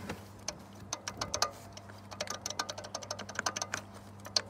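Worn pulley bearings on a VW 2.8 VR6 accessory drive, the belt tensioner and the water pump, spun by hand with the belt off, giving a fast, irregular clicking rattle. The tensioner is the louder, worn enough to need replacing; the water pump is a bit quieter.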